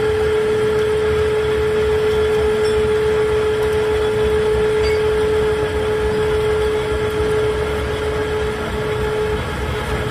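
Metal lathe turning a steel truck axle shaft: the machine runs steadily under a single sustained whine from the cut, which breaks up and fades near the end.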